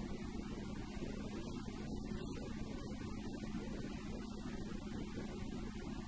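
Goggomobil's air-cooled two-cylinder two-stroke engine droning steadily at cruising speed, with a constant low pitch over road rumble.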